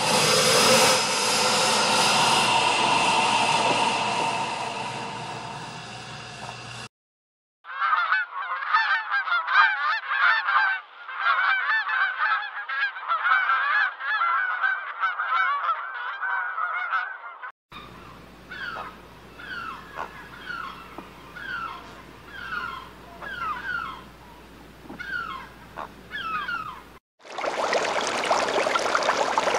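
A run of separate animal-sound clips edited one after another. First comes a loud, drawn-out pitched call that fades over about seven seconds. Then about ten seconds of many honking calls at once, then a stretch of repeated short falling chirps, and near the end a steady rushing noise like running water starts.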